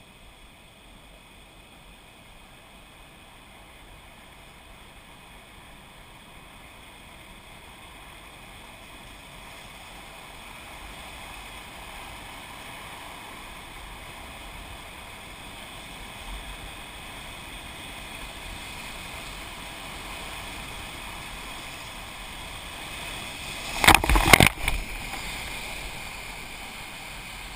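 Rushing roar of a big whitewater rapid, Lava Falls on the Colorado River, growing steadily louder as the boat nears it. Near the end, a few loud crashes as the first waves break over the boat and the helmet camera.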